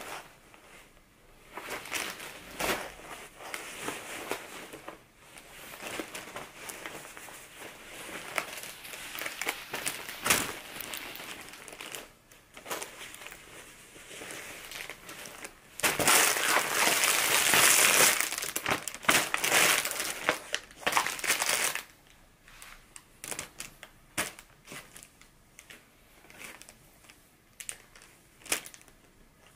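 Packaging crinkling and rustling in irregular bursts as it is handled, loudest for about five seconds past the middle.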